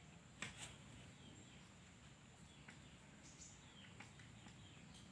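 Near silence: faint background with a steady high thin whine, and two light clicks about half a second in.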